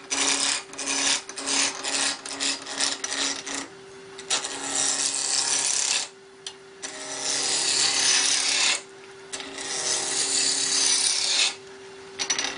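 Wood lathe running with a steady motor hum while a turning tool cuts the spinning wood: short rapid strokes for the first few seconds, then three longer cuts of about two seconds each with brief pauses between.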